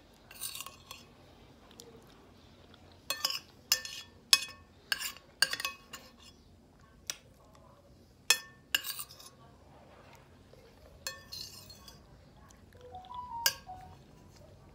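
Spoon scraping and clinking against a glass bowl: a quick run of sharp clinks about every half second, then a few scattered ones.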